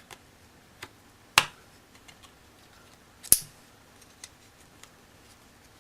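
Pegs and playing cards being handled: a few faint ticks and two sharp, loud clicks about two seconds apart as the pegs are opened and the cards taken out.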